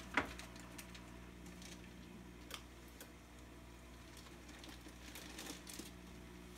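Quiet room tone: a low steady hum, with a few faint clicks and taps as a fish bag is handled at the top of the aquarium, one just after the start and one about two and a half seconds in.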